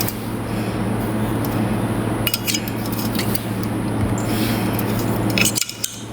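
A steady low mechanical hum with a few scattered clinks and knocks; the hum cuts off about five and a half seconds in.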